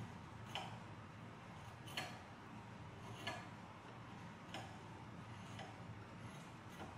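A 5-inch draw knife shaving wood from the eye end of an axe handle, cutting in short, sharp strokes about every second and a quarter, six in all. A faint steady low hum runs underneath.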